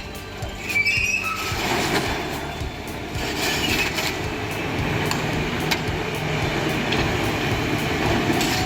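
Heavy tracked machinery running: high metallic squeals in the first second or so, then a steady rumbling engine with scattered clanks.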